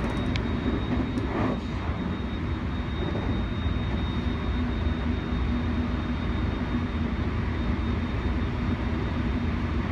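Electric train running: a steady low rumble with a thin high whine that fades over the first few seconds and a low hum that comes up later.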